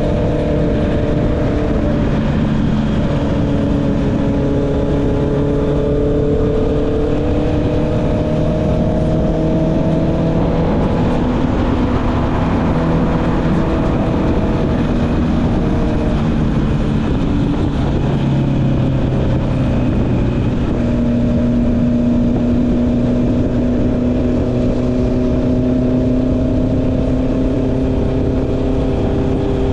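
Honda CB650R's inline-four engine with an Akrapovic exhaust running under way. Its pitch slowly rises and falls with the throttle and drops about eighteen seconds in, over a steady rush of wind and road noise.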